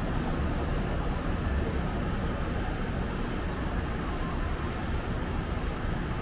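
Steady distant city traffic noise heard from high above the road: an even rumble and hiss with no single vehicle or event standing out.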